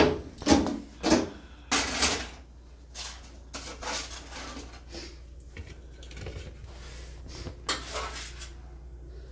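Kitchen handling clatter: a metal baking pan knocking against the oven rack and the stovetop, then a utensil scraping hash browns off foil in the pan. The sound comes as a string of sharp knocks, busiest in the first two seconds, with a few more later.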